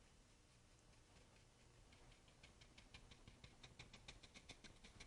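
Faint, quick tapping of a flat watercolour brush dabbing paint onto paper, about five light taps a second, starting about two seconds in.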